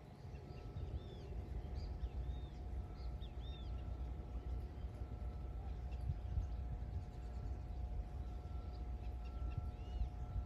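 Gusty wind buffeting the microphone as a low, uneven rumble, while small birds chirp in short arching calls, several in quick succession in the first few seconds and again near the end. A faint steady whine runs underneath.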